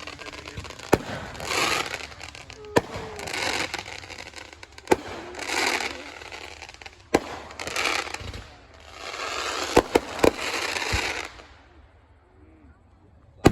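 Fireworks going off: sharp bangs every two seconds or so, each with a second-long burst of rushing hiss around it, and three bangs in quick succession about ten seconds in. It dies down near the end before one last sharp bang.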